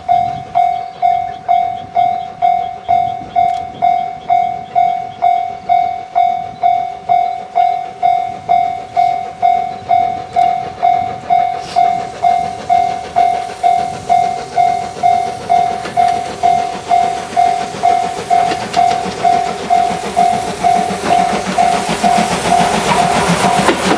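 Japanese level-crossing warning bell ringing steadily at about two strokes a second. Over the last several seconds the running noise of the approaching C57 steam locomotive and its train builds until it is louder than the bell.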